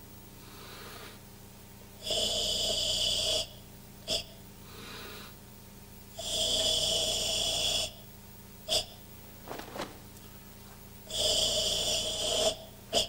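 Karate practitioner's forceful ibuki tension breathing: three long, loud, hissing exhalations forced out through a tightened throat, each ended by a short sharp huff. Quieter inhalations come in between.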